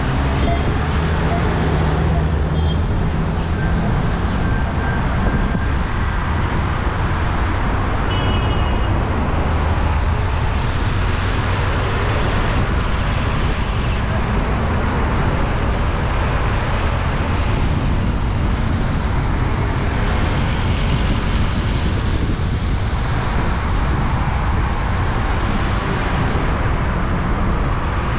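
Steady city street traffic: buses and cars running past close by, a continuous din of engines and tyres.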